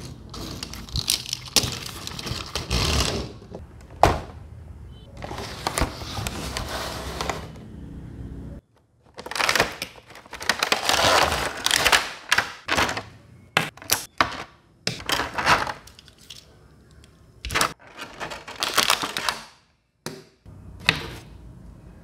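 Cardboard box and plastic packaging tray being handled: rustling, scraping bursts broken by sharp clicks and knocks.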